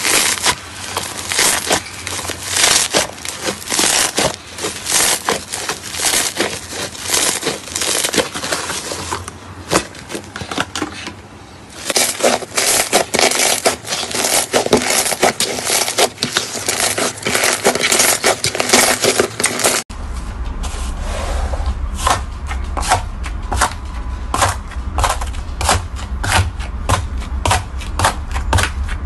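Slime being stretched and squished by hand, giving dense wet crackles and pops as the air pockets in the fluffy slime burst. After an abrupt change about two-thirds of the way in, crunchy white slime with a hardened bubbly top is pressed and broken, crackling steadily over a low hum.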